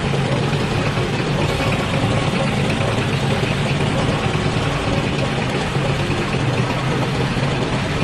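Engine of a slow-moving vehicle heard from on board, running at a steady low note.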